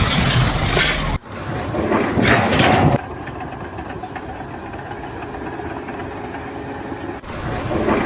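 An engine running, heard across several abruptly joined segments: loud noisy passages at the start and end, with a quieter steady hum in the middle.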